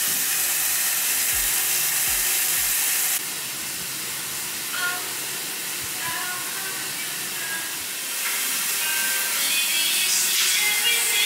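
Shower spray running, a steady hiss of water from the shower head.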